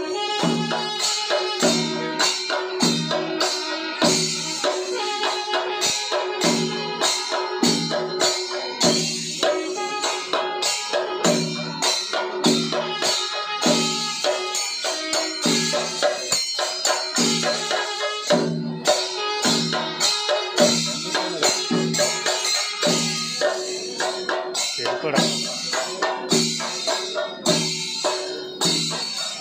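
Live temple percussion: drums beaten in a steady, fast rhythm with jingling cymbals, over a steady held tone.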